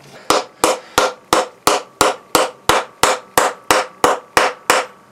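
Wooden mallet driving a wooden wedge into the kerf of an axe handle's top, seating the handle in the axe head's eye. Fourteen steady, even blows about three a second, each a sharp knock with a short ring.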